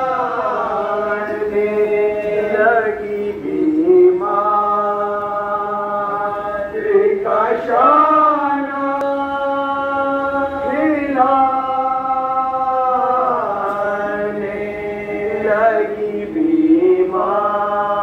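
A group of men chanting a Shia Muharram mourning lament, unaccompanied, in long held phrases that glide from note to note over a steady low held tone.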